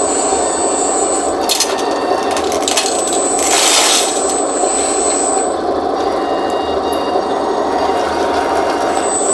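Small electric motors and hydraulic pump of a 1:14 scale RC hydraulic skid steer loader running steadily. A high whine comes and goes, with a few clicks about a second and a half in and a brief louder rush of noise about four seconds in.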